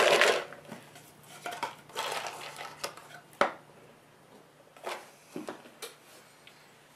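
Treasure tokens rattling inside Dungeon Roll's small cardboard treasure-chest box as it is shaken and a token is drawn, followed by a few sharp clicks and taps as pieces and the box are set down on the table.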